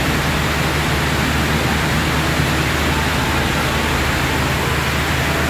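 Heavy rain falling on the platform roof, a steady dense hiss, with a low steady hum underneath.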